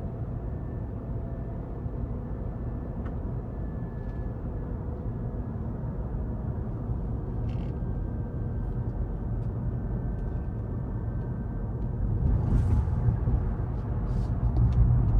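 Cabin noise inside a Rivian R1T electric pickup on the move: a steady low road rumble with a few faint steady tones above it, growing louder about three-quarters of the way through.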